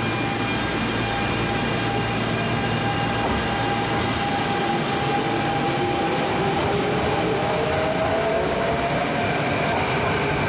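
Kintetsu 1252-series electric train pulling out of an underground platform. A steady motor hum and wheel noise run throughout, joined in the second half by a motor whine that rises in pitch as the train picks up speed.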